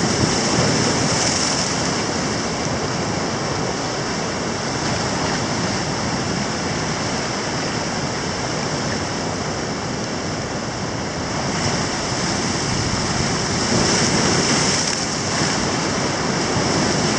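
Ocean surf washing onto a beach in a steady rush of breaking waves, growing a little louder in the last few seconds.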